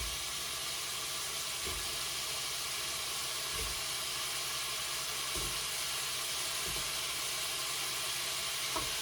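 Cucumber and shrimp sizzling in a hot frying pan with a steady hiss, the cucumber freshly added to the hot oil. A few soft low knocks sound now and then.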